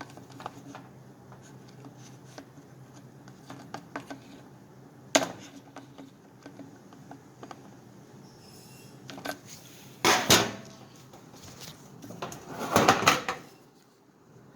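A flat screwdriver and hand working inside a chainsaw's plastic fuel tank to push the fuel filter out: scattered clicks and knocks, one sharp knock about five seconds in, and louder clattering about ten seconds in and again near the end.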